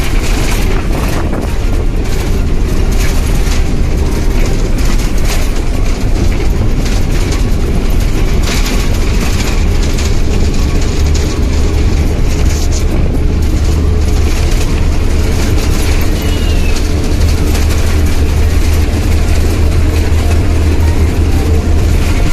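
Steady, loud rumble of a moving vehicle heard from inside: engine and road noise with a strong low hum.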